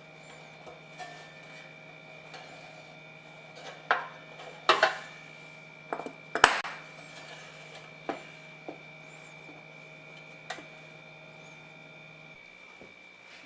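Metal parts clinking and knocking against each other, about half a dozen sharp strikes with two loud clusters in the middle, over a steady low hum and a high whine. The low hum cuts out near the end.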